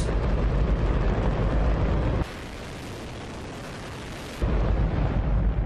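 Hydrogen-oxygen rocket engine firing on a test stand: a continuous deep rumbling roar. About two seconds in it drops to a quieter, thinner hiss for about two seconds, then the full rumble comes back.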